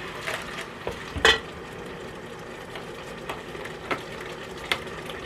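Ground beef simmering in taco seasoning and chicken broth in an electric kettle, with a utensil stirring it and knocking against the pot several times, the loudest knock about a second in.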